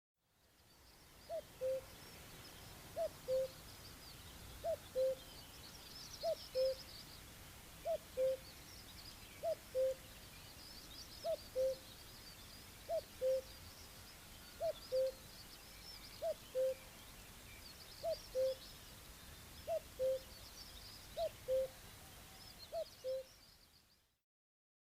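Common cuckoo singing its two-note "cu-ckoo", a higher note dropping to a lower one, repeated steadily about every second and a half to two seconds, fourteen times. Other small birds chirp faintly behind it.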